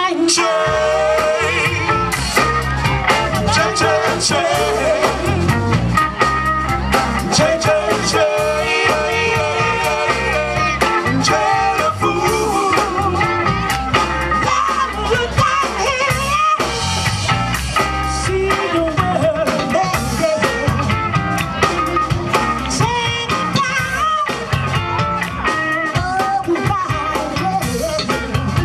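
A live soul band playing, with a woman singing lead into a microphone over electric guitar and drums.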